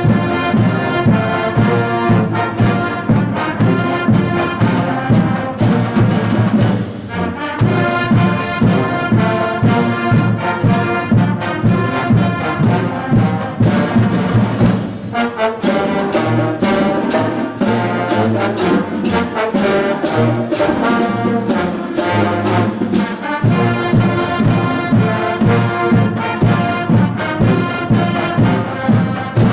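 School concert band playing a medley of the U.S. armed forces service songs: brass-led melody over a steady marching beat.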